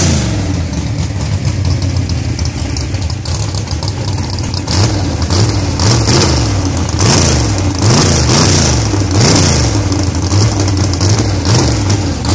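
Drag race car's engine idling loudly, then revved in a series of quick throttle blips from about five seconds in, each rising and dropping back.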